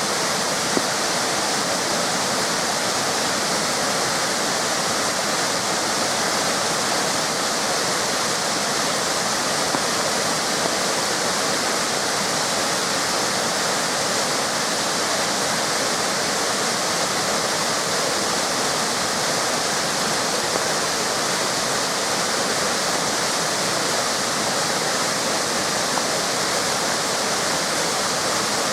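River cascades: water pouring over small waterfalls in a steady, unbroken rush.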